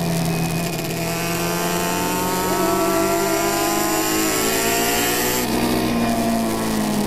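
Engine of a 350cc classic racing motorcycle heard from on board at speed, its pitch climbing steadily as it accelerates. About five and a half seconds in, the pitch dips briefly and then climbs again. The recording crackles, which the uploader puts down to moisture in the camera.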